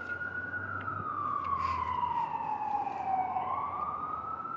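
Emergency vehicle siren wailing: one long tone whose pitch falls slowly, then climbs back up again about three seconds in.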